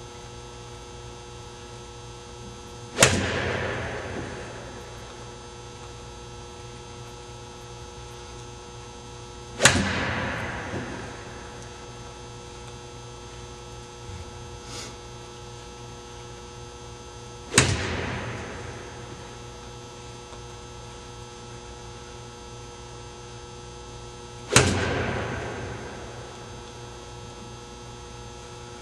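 Golf club striking balls off an artificial-turf hitting mat: four sharp hits about seven seconds apart, each with a short fading tail. A steady electrical hum runs underneath.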